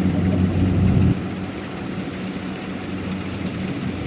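Diesel engine of a Kubota DC-70 Plus rice combine harvester running steadily with a low hum. About a second in it drops suddenly to a quieter level and keeps running.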